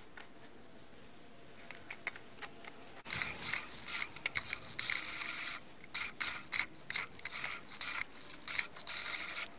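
Great States 204-14 push reel mower re-cutting wet grass, its spinning blades making a scissor-like scraping whirr in short, irregular spurts as it is pushed back and forth, starting about three seconds in.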